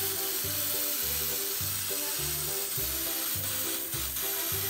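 Aerosol spray can of black paint hissing in one long continuous spray, over background music with a steady bass beat.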